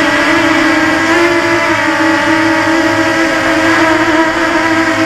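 An Eachine Tyro 129 FPV quadcopter's motors and propellers buzzing in flight, a steady whine whose pitch wavers slightly up and down with the throttle.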